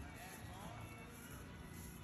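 Faint music.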